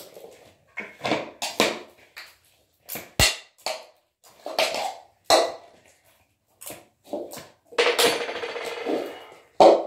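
Hands mixing slime in a metal mixing bowl: irregular knocks and clinks against the bowl, with a longer noisy stretch about eight seconds in.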